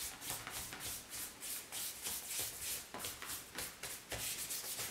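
Hands rubbing and smoothing black fondant over a polystyrene foam ball, a soft rubbing in quick, irregular strokes as the pleats are worked out and the fondant is pressed down.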